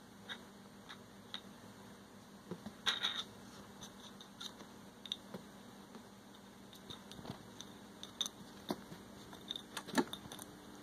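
Small plastic bottle cap being batted around by a cat, giving scattered light clicks and taps, with a quick cluster about three seconds in and a sharp click near the end.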